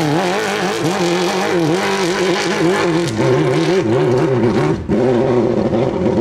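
Suzuki GSX-R 1100 inline-four motorcycle engine revving hard, its pitch rising and falling repeatedly, with a brief break about five seconds in.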